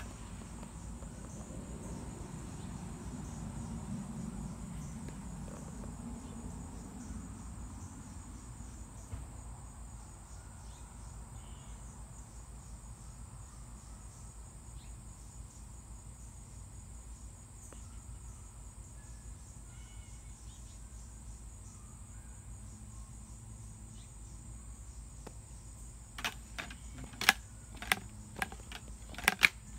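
A steady high-pitched insect chorus trilling throughout. A low rumble fades out over the first several seconds. Near the end come several sharp clicks or knocks, the loudest sounds.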